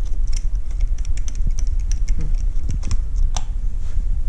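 Scattered light clicks and taps from parts being handled at the bike's loose hose fitting, over a steady low rumble, with one sharper click a little after three seconds in.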